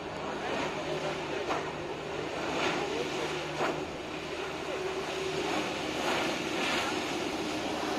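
Jet ski engine running steadily, driving a flyboard through its hose, with the rush and spray of the water jets.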